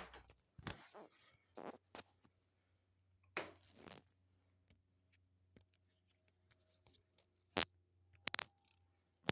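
Scattered light knocks, clicks and rustles of things being handled, with one longer rustle about three and a half seconds in and a sharper knock near the end, over a faint low steady hum.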